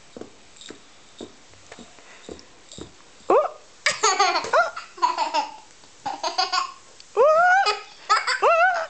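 Toddler laughing and squealing in several bursts, with rising shrieks, starting about three seconds in after a few soft taps.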